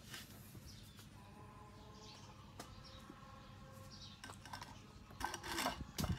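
A puppy eating a slice of cooked vegetable, a quick run of wet clicks and smacks of chewing and licking about five seconds in. Birds chirp faintly.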